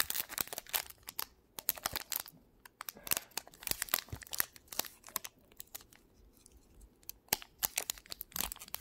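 Foil Pokémon booster pack wrapper crinkling and tearing as it is worked open by hand, in clusters of sharp crackles that thin out past the middle and pick up again near the end; the wrapper is sealed tight and hard to tear.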